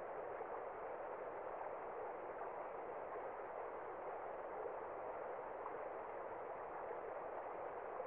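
Small stream running over rocks into a pool: a steady, even rush of water.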